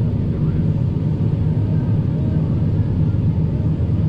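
Combine harvester running with a steady low rumble while unloading corn through its auger into a grain cart on the go.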